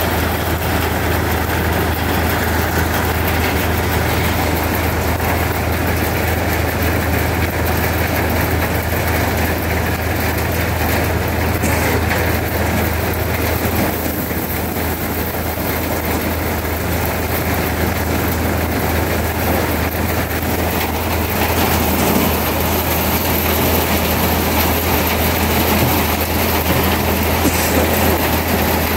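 Workshop machinery running steadily during machining: a continuous low hum under an even, noisy whir, shifting slightly in tone about two thirds of the way through.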